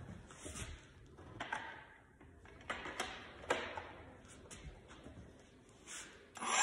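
Scattered faint clicks and knocks as an angle grinder fitted with a toothed saw blade is handled and set against a wooden stair, its motor not running.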